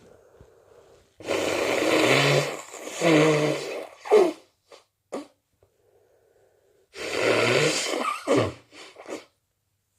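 A person forcefully blowing their nose, twice, about six seconds apart. Each blow is a long, noisy blast of about a second and a half with a low pitched tone near its end, followed by a few short, sharp nasal bursts.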